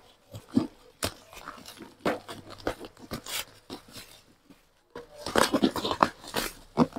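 Rustling and crinkling of a parcel's packaging being opened by hand: irregular crackles and small clicks, sparse at first and busier near the end.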